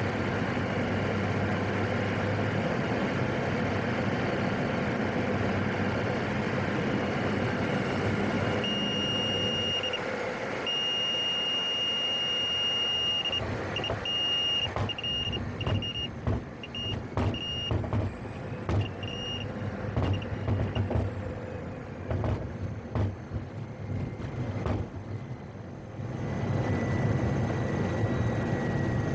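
Cockpit drone of the PAC 750XL's turboprop, with a high warning tone coming on about a third of the way in, held for a couple of seconds, then beeping on and off. After it stops comes a run of irregular knocks and bumps at lower level, and near the end the engine drone swells up again.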